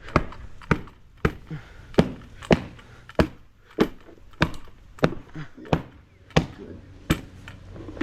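Hand tamper striking rubber concrete stamp mats to press the texture into fresh concrete: a steady series of sharp thuds, about one every 0.6 seconds.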